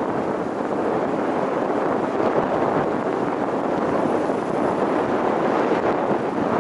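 Steady road and wind noise of a vehicle driving at an even speed, a constant rushing with no engine note standing out.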